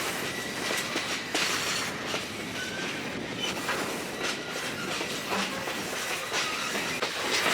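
Passenger train cars rolling along the track: a steady running rumble of wheels on rails, with a few faint clicks as the wheels pass over rail joints.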